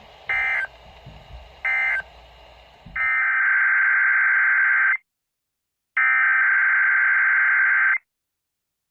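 Emergency Alert System digital data bursts (SAME tones), a buzzy electronic screech. Two short bursts near the start mark the end of the flood warning message. Then come two longer bursts of about two seconds each, a second apart: the coded header of the next alert.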